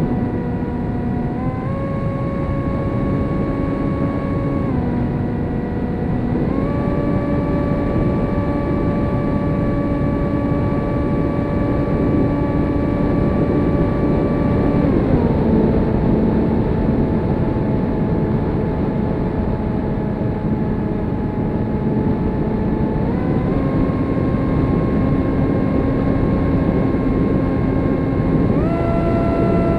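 Electric motor and propeller of an F27 RC plane whining in flight, heard from its onboard camera over steady wind rush. The pitch steps up and down with the throttle: it drops just after the start, rises about two seconds in, dips around five seconds, climbs again at six and a half, drops at about fifteen seconds, and rises again near twenty-three and once more near the end.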